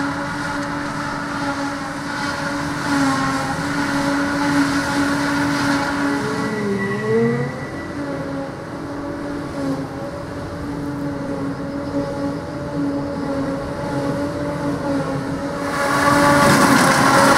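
Claas Jaguar forage harvester and John Deere tractor working together, a steady engine-and-machinery drone with a whine. The pitch dips briefly and recovers about seven seconds in, and the sound gets louder near the end.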